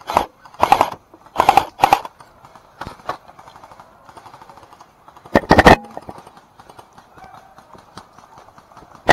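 Airsoft STG-44 replica electric rifle (AEG) firing short bursts of rapid shots: about four quick bursts in the first two seconds, a couple of single shots around three seconds in, and a longer, louder burst about five and a half seconds in.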